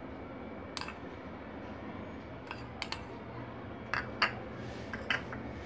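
A handful of light, sharp clicks of a metal spoon against ceramic bowls, spread out over a faint steady background hiss, as black salt is spooned and sprinkled over yogurt.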